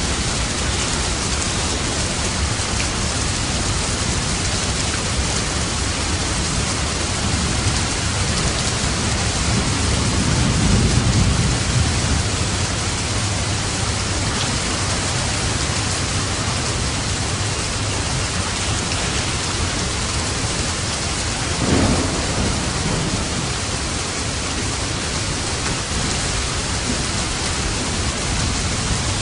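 Steady heavy rain hissing, with thunder twice: a low rolling rumble about a third of the way in and a sharper clap with rumble about two-thirds in.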